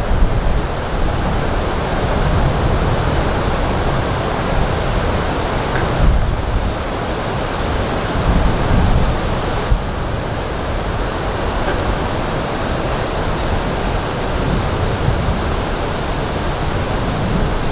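Wind buffeting the microphone, a steady rushing noise, over a constant high-pitched chorus of insects.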